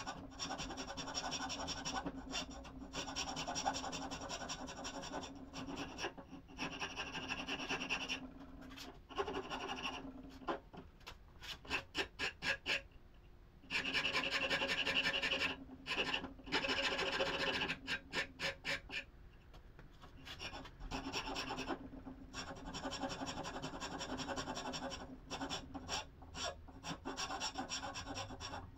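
A tool working the wood of a kukri's maple handle, running in stretches of several seconds and broken by bursts of quick short strokes.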